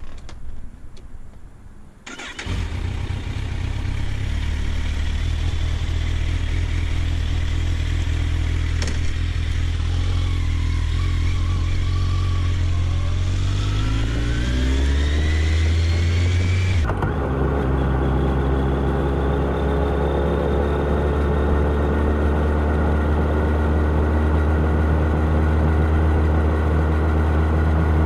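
Kawasaki Ninja 1000's inline-four engine starts up suddenly about two seconds in and idles steadily, then revs with rising pitch; after an abrupt change in tone about two-thirds of the way through, it runs on steadily with its pitch slowly climbing.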